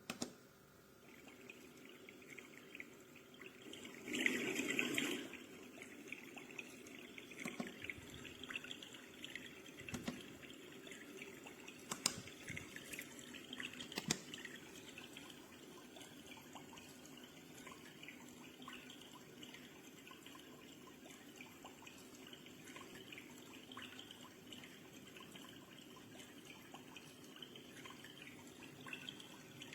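Trickling, dripping water sound, a nature or white-noise track played through the small speaker of a Suright sunrise alarm clock. It switches on with a click and cuts off abruptly near the end.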